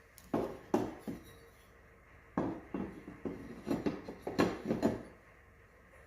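Irregular sharp knocks and clatter from handling work: three hits in the first second, then a quicker run of knocks from about two and a half seconds in.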